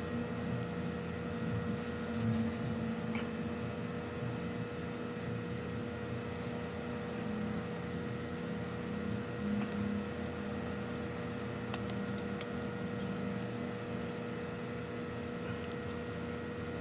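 A steady mechanical hum with several fixed tones, with a few faint clicks.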